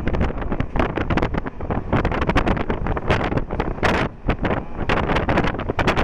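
Wind buffeting the microphone in hard, irregular gusts over the low rumble of a moving MEMU electric passenger train.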